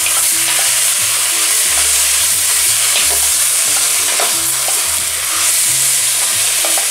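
Chunks of beef with diced carrot and celery sizzling in hot olive oil in a cast-iron pot, stirred with a wooden spoon: the meat is being seared on all sides.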